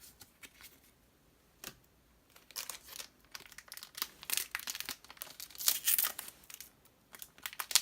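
Foil booster pack of trading cards being torn open down the centre, with the wrapper crinkling in quick crackles from about two and a half seconds in; the first couple of seconds hold only a few faint clicks of handling.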